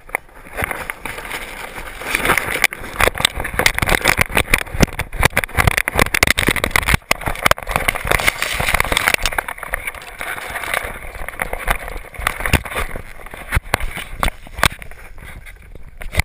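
GoPro camera strapped loosely on a running whippet's back, rattling and knocking in its mount with a dense run of rapid clicks, while tall grass brushes and scrapes over the housing.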